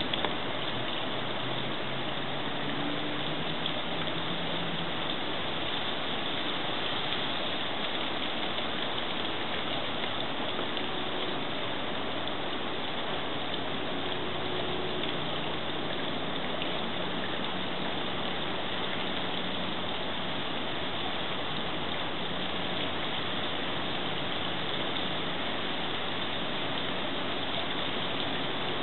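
Steady rushing splash of running water from a garden fountain, even and unbroken throughout.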